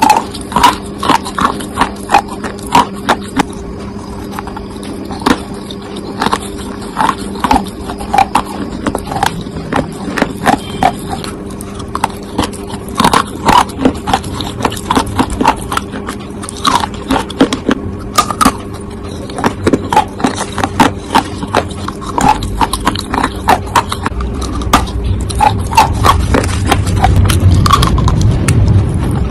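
Close-miked crunching and chewing of clay pipe pieces: irregular sharp crunches, about one or two a second, over a steady low hum. A low rumble builds in the last few seconds.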